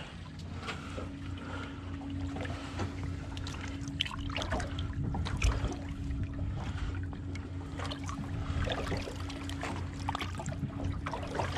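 Small splashes and trickling water as a lingcod is held by hand in the sea alongside the skiff's hull for release, over a steady low hum.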